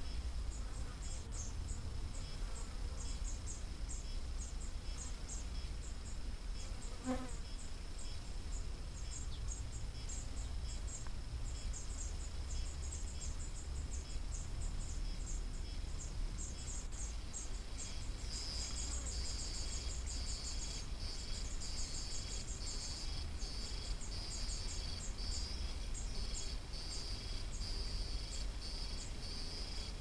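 Insects stridulating: a high, rapid ticking chirr that goes on steadily and grows louder about two-thirds of the way through, over a low steady rumble.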